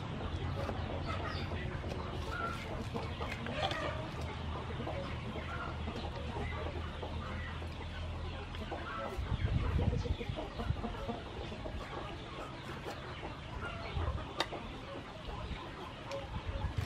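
Chickens clucking in the background, mixed with the light clicks of a kitchen knife slicing pineapple on a wooden cutting board. A few dull low thumps come in the middle.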